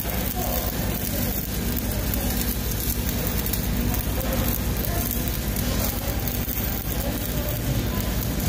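Stick-welding arc burning on a steel pipe elbow: a steady crackling sizzle as the electrode runs.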